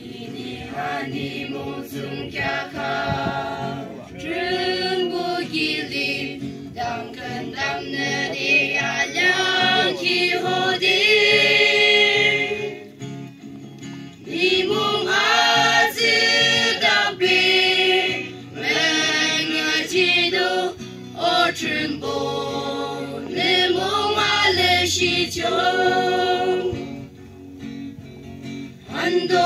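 Mixed choir of men and women singing together in long phrases, with brief pauses between them.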